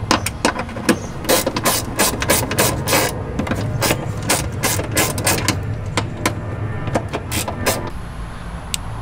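A run of sharp, irregular mechanical clicks, two or three a second, from hand-tool work on the electrical connections under the hood; they die away near the end. Under them runs a steady low hum, plausibly the FJ Cruiser's engine idling.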